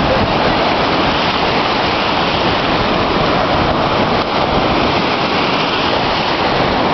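Sea surf washing onto the shore, a loud, steady rush of water.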